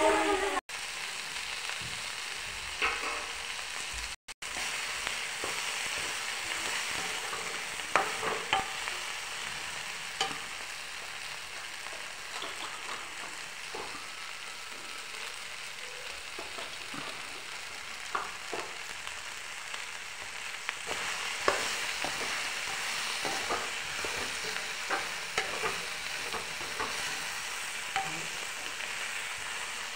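Chopped okra and tomato sizzling in a hot frying pan while a metal spatula stirs them, with the spatula scraping and knocking against the pan every few seconds. The sound cuts out briefly twice near the start.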